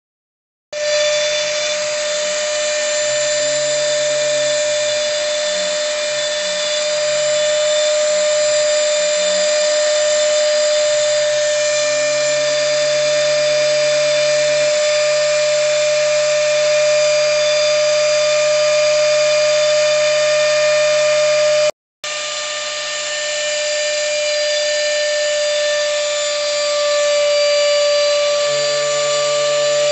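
CNC router spindle running with a steady high whine as it cuts a white-faced board, under a lower motor hum that slides up and down in pitch as the machine's axes move. The sound starts under a second in and breaks off for a split second about two-thirds of the way through.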